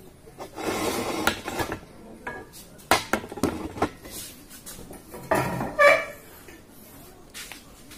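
Small metal parts clinking and rattling in several short bursts, the loudest about three-quarters of the way through: a piston and its piston rings being handled and turned over.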